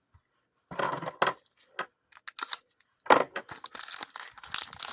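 Trading cards being handled: scratchy rustling and clicking, in a short burst about a second in and a longer, louder one from about three seconds in.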